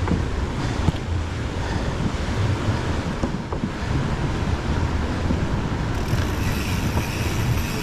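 Wind buffeting the microphone while riding a mountain bike, over a steady low rumble of tyres rolling on the trail, with a few faint ticks.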